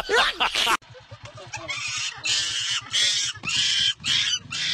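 A loud chattering, laughter-like sound cuts off under a second in. A small motorcycle engine then idles with a regular low pulse, and from about two seconds in, short rasping, hissy cries repeat a couple of times a second.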